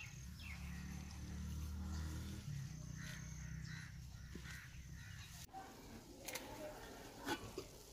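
Faint outdoor field ambience: a low drone for the first two and a half seconds, then a few short bird chirps. After a sudden change partway through, a few light clicks follow.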